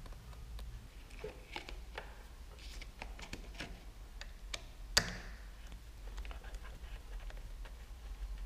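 Scattered small clicks and ticks of a hand screwdriver's bit and the plastic throttle-grip and switch-housing parts being handled as a screw is worked on the motorcycle handlebar, with one sharp click about five seconds in.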